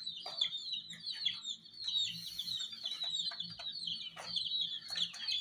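A brood of baby chicks peeping continuously, many overlapping high-pitched chirps, with scattered light clicks among them.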